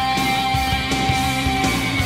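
Rock music with electric guitar, with one long note held through and sagging slightly in pitch near the end.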